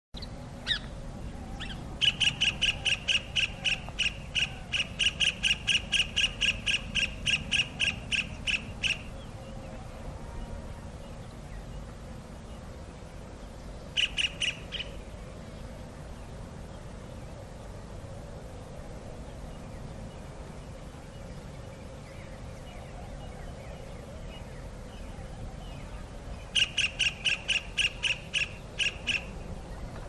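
Common kingfisher calling: a long run of sharp, high, evenly spaced piping notes, about three a second, lasting some seven seconds, then a short burst of three notes around halfway and another run of about ten notes near the end.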